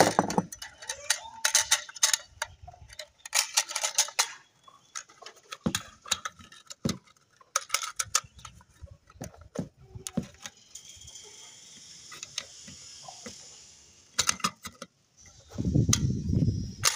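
Irregular metallic clicks and scrapes as an AK-47 magazine is assembled by hand: the steel spring is worked into the magazine body and the bottom is pressed and fitted. A dull low rumble of handling comes near the end.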